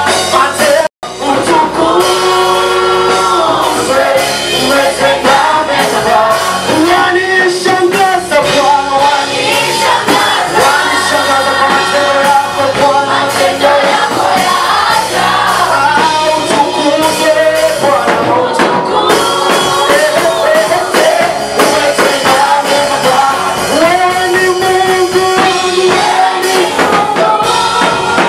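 Live church praise song in Swahili: voices singing over instrumental accompaniment, with a brief dropout about a second in.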